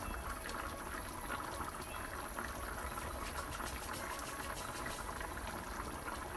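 Thick red pea soup with coconut milk bubbling steadily at the boil in a pan, with many small irregular pops.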